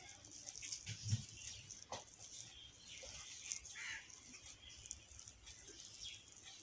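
Faint scraping and light clicking of a table knife spreading a shami kebab patty over a bread slice, with a soft knock about a second in.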